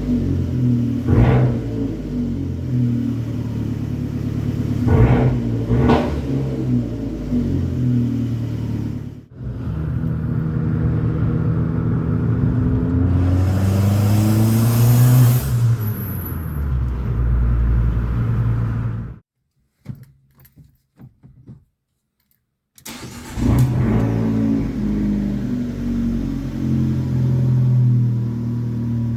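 Abarth's turbocharged four-cylinder engine heard from inside the cabin, revving up and down, with a few sharp cracks in the first six seconds. The sound drops to near silence for a few seconds about two-thirds of the way through, then the engine revs again.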